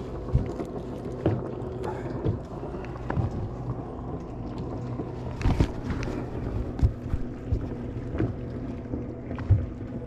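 A bass boat's motor hums steadily, with scattered knocks and bumps on the boat every second or two.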